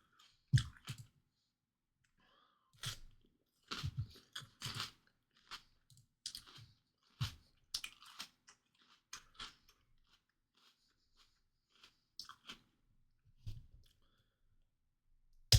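A person chewing and biting into raw bell pepper close to the microphone, with irregular crunches every second or so.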